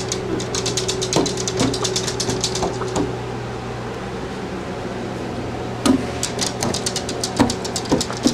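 Small dog's claws scratching and clicking rapidly on a glass door, stopping for a few seconds about three seconds in and then starting again with a few louder knocks against the glass, over a steady hum.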